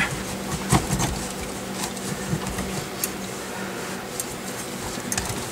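Small clicks and rustles of a taped wiring harness being worked through a steering column, over a steady low electrical hum.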